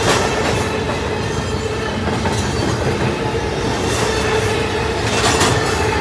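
Double-stack intermodal freight cars of a BNSF train rolling past at speed: a steady rumble of steel wheels on rail, with clacks as the wheels cross rail joints, the loudest about five seconds in.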